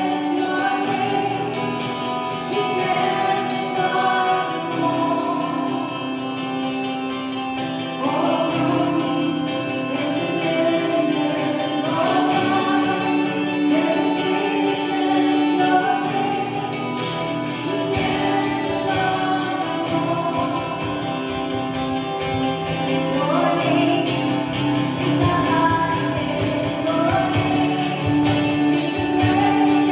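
Gospel choir singing with instrumental backing, the backing growing fuller about two thirds of the way through.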